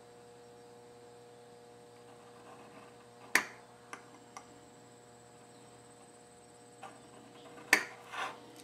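A handful of sharp metallic clicks and taps as a caliper's jaw is worked against an aluminum angle bracket to scribe a layout line. The loudest click comes about a third of the way in and another near the end, over a steady faint hum.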